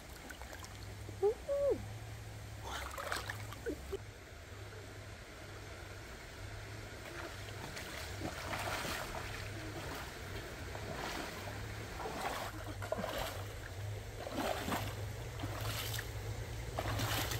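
Shallow stream running over stones, with several splashing footsteps as someone wades through the water in sandals, most of them in the second half.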